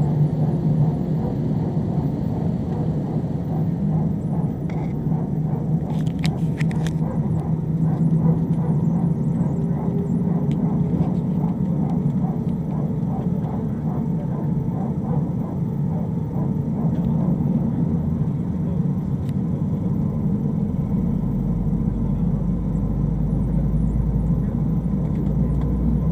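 Airbus A320 cabin while the airliner taxis: steady hum and rumble of the jet engines and rolling airframe. A few brief clicks sound about six seconds in, and a deeper low rumble builds from about twenty seconds in.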